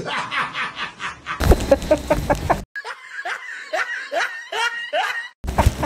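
Men laughing hard in short, repeated bursts, across spliced clips that cut off abruptly twice.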